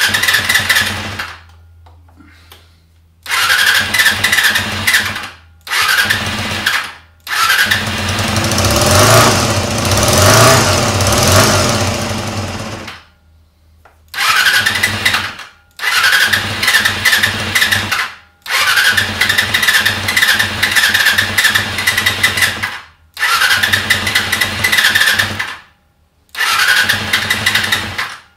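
Honda CBR250R MC19 inline-four being cranked on its electric starter in about nine separate bursts, one of them several seconds long. The engine tries to fire but does not keep running.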